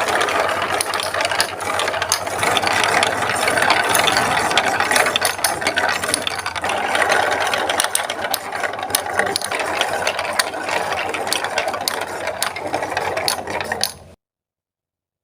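Marbles rolling and clattering along a plastic Lego Duplo block track: a dense, continuous rattle of clicks that cuts off abruptly near the end.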